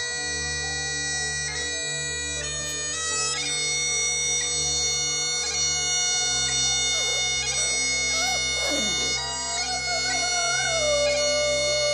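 Bagpipes playing a tune over their steady drone. In the second half a Scottish terrier puppy joins in with a wavering, bending howl.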